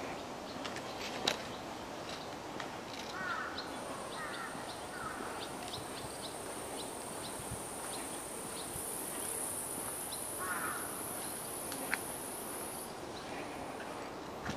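A high, steady insect buzz sets in about four seconds in, grows louder partway through and stops near the end, over an outdoor background with a few short bird twitters and soft clicks.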